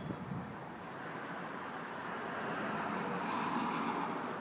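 Eurocopter EC135 helicopter overhead: a steady rush of rotor and turbine noise, muffled by window glass, that swells gently about three seconds in.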